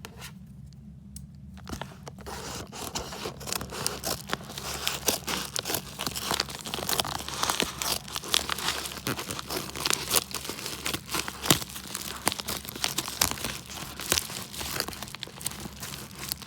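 Crinkling, rustling and tearing of packaging as a mailed parcel bag is opened by hand, starting about two seconds in and going on in irregular bursts.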